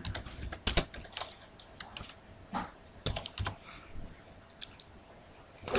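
Computer keyboard typing: a run of irregular keystrokes that thins out near the end.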